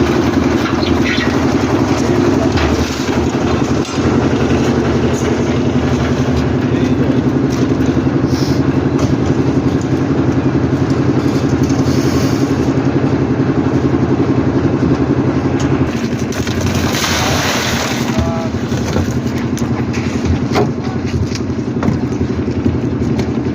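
A machine engine on a concrete slab job running steadily at constant speed with a fast, even beat. There is a short burst of hissing noise about seventeen seconds in.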